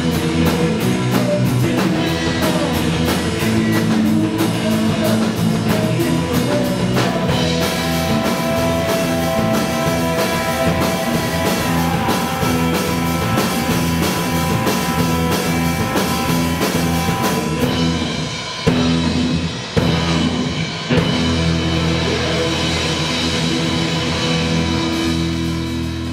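Live surf-rock band playing electric guitars over a drum kit. Near the end the band hits a few short stop accents, then holds a final chord that rings out and fades.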